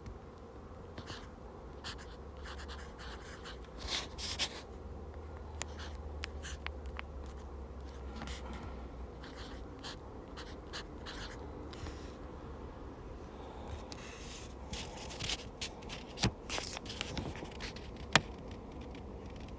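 Fountain pen nib scratching across the pages of a Hobonichi Weeks planner as words are written in short, irregular strokes. A few sharper ticks come near the end.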